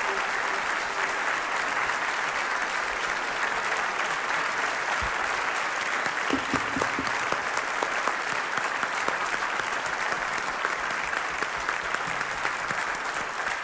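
Audience applauding steadily in a concert hall, easing slightly near the end.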